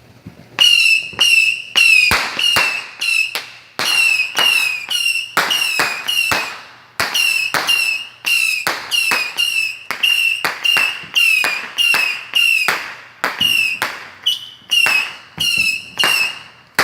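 A consumer firework cake firing a rapid string of whistling shots, about two a second. Each shot is a sharp crack followed by a short, high whistle that falls slightly in pitch. The shots start about half a second in and stop just before the end.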